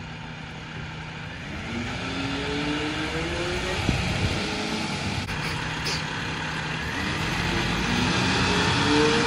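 Freightliner Econic SD garbage truck's engine pulling away, the pitch rising twice with a drop between as the automatic transmission shifts up, growing louder toward the end.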